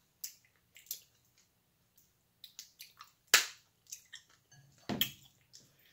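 King crab leg shells being cracked and snapped apart by hand: a scatter of small clicks and crackles, with one sharp, loud crack a little past halfway.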